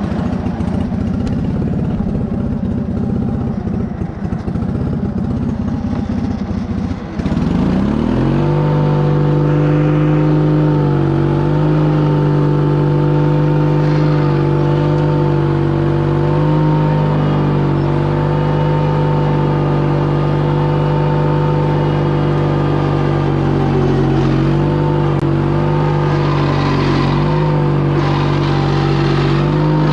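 Case 1816 mini skid steer engine running with a rattle, then about seven seconds in it revs up quickly and holds a steady high speed.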